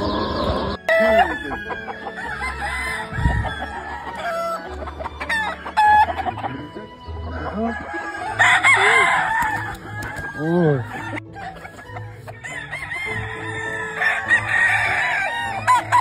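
Several game-fowl roosters crowing over one another, with clucking in between; the loudest crows come about halfway through and again near the end.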